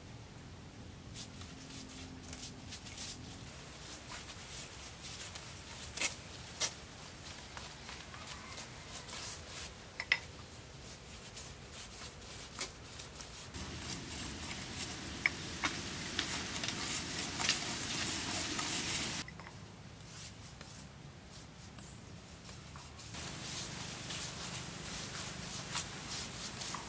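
Paintbrush scrubbing paint onto rough concrete: a scratchy rubbing of brush strokes with a few light clicks and knocks. It is louder in two stretches in the second half, each cutting in and out abruptly.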